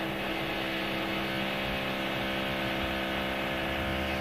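A steady hum at several fixed pitches, holding level without change.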